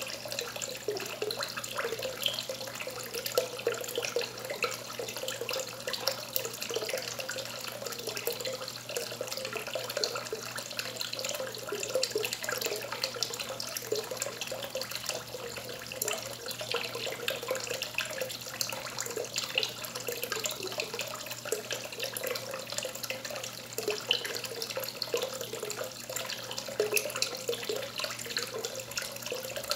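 A thin stream of water falling from an outlet pipe into the water, a steady splashing trickle.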